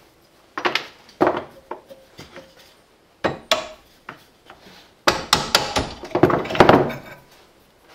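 A hammer knocking on a small bracket held in a bench vise, with tool handling: a few single knocks in the first few seconds, then a quick string of blows about five seconds in.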